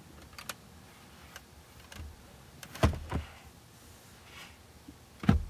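Plastic clicks and knocks of a car's rear centre armrest and trunk pass-through cover being handled and shut: a few light clicks near the start, two sharp knocks about three seconds in, and a louder thump near the end.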